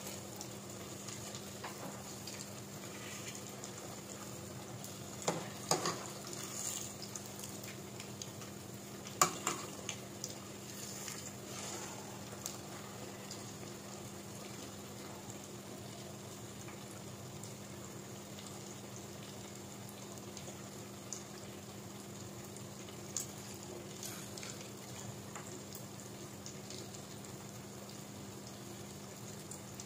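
Kwek-kwek, batter-coated eggs, deep-frying in hot oil in a pot with a steady sizzle. A metal ladle knocks against the pot a few times between about five and twelve seconds in, and once more later.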